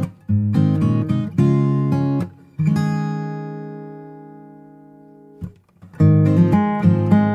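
Background music: acoustic guitar strumming chords. About three seconds in, one chord is left to ring and fade away, and the strumming starts again near the end.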